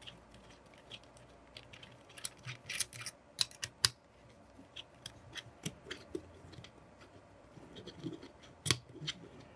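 Small metal clicks and scrapes of an Allen key turning the screws out of a paintball gun's ASA (air source adapter), with a few sharper ticks about a third of the way in and one near the end.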